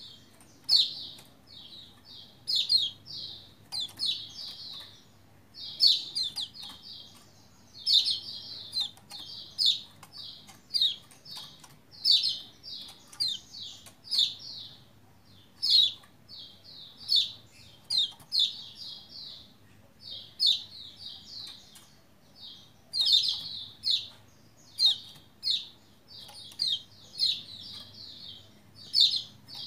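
Pleci Lombok (kecial kuning) white-eye chirping: short runs of three to five quick, high 'ciak' notes, one run about every second, with sharp little clicks in between.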